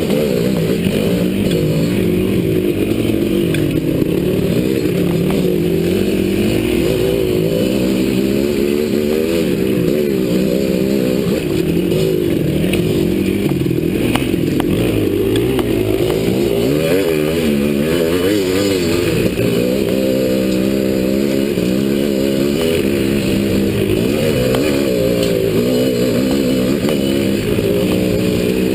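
Dirt bike engine heard up close from the bike itself, its revs constantly rising and falling as it is ridden along a rough trail.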